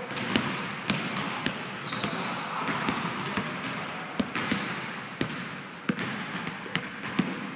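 Basketball bouncing on a hardwood gym floor in an irregular run of sharp thuds as players run the court, with a few short high sneaker squeaks.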